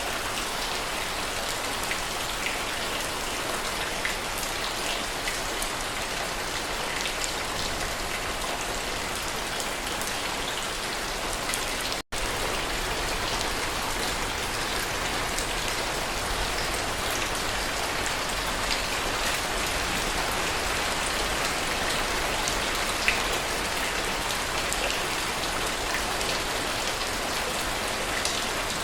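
Steady heavy rain falling, an even hiss with scattered individual drop ticks. It cuts out for an instant about twelve seconds in.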